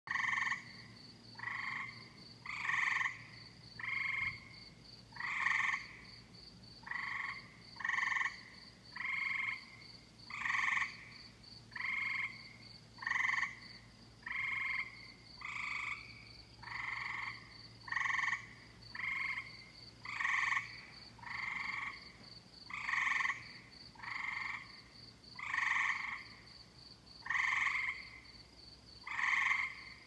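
Tree frogs calling in a summer evening chorus: short trilled calls, about half a second each, repeat evenly at a little over one a second. A steady, high, rapidly pulsing trill runs continuously underneath.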